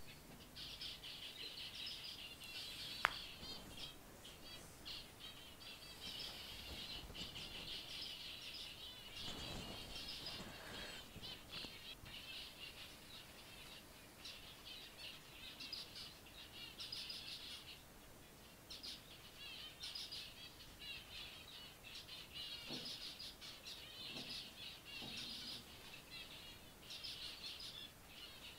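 A group of zebra finches calling and chattering, many short notes overlapping with hardly a break. There is a single sharp click about three seconds in, and a brief low rumble near ten seconds.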